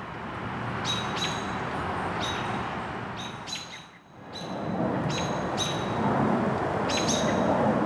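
Bird giving a dozen or so short, high-pitched chirps, some in quick pairs, over a rushing background noise that swells and fades.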